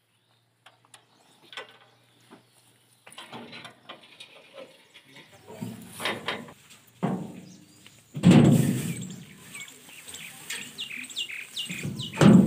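Sounds begin about three seconds in: knocks and a few heavy thumps from the metal parts of a stationary paddy thresher being handled, the loudest about eight seconds in and at the very end. Birds chirp quickly and repeatedly near the end.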